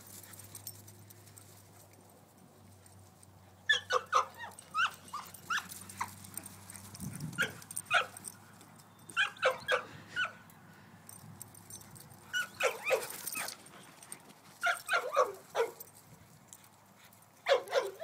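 Two German shorthaired pointers yipping and barking in play: short clusters of high yelps, the first about four seconds in, coming back every second or two.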